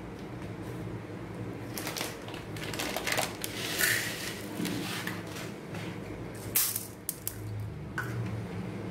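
Split moong dal dry-roasting in a metal kadai over a low flame: scattered clicks and crackles from the grains over a steady low hum.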